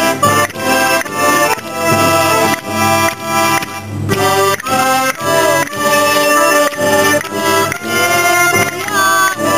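Accordion playing a tune with a steady beat, held notes changing from phrase to phrase.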